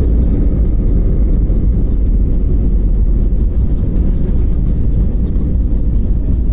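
Airbus A320-family airliner rolling out on the runway after touchdown, heard from inside the cabin: a loud, steady low rumble of the wheels on the runway and the engines, with the spoilers up.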